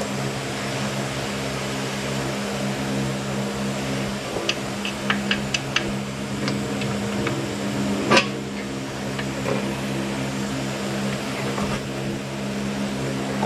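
A steady mechanical hum, with a scatter of light clicks near the middle and one sharp knock about eight seconds in.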